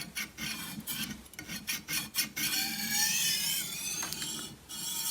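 Chef's knife blade being stroked across a bench sharpening stone: a run of quick rasping strokes, then a longer scrape with a wavering high squeal from about halfway through.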